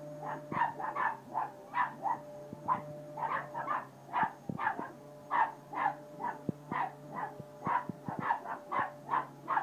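Small dogs barking rapidly and repeatedly, about two or three barks a second, at an upright Dyson vacuum cleaner. The vacuum's motor runs as a steady hum underneath.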